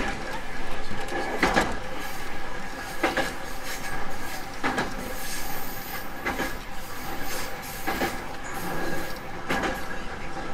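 Running sound of a 311 series electric multiple unit heard from inside the car: the wheels click over rail joints about every second and a half over the steady rumble of the moving train.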